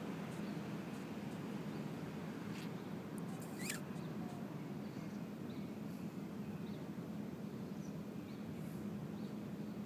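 Steady low outdoor hum, with faint short bird chirps scattered through it and one clearer, quick downward-sweeping chirp a few seconds in.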